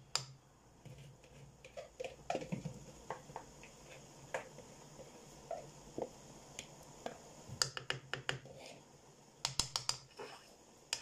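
Thick tomato-and-pepper stew cooking in a pot, giving soft pops and plops at irregular moments, with two quick runs of sharp ticks about two thirds of the way through and near the end.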